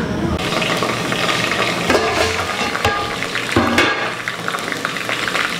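Sliced onions frying in hot oil in an aluminium pot, sizzling steadily, with a wooden spoon stirring and scraping now and then. The sizzle starts about half a second in.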